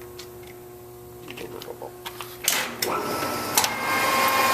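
A few light clicks of the controls being handled, then the Clausing-Colchester 15-inch lathe starting up about two and a half seconds in and running steadily with a whine.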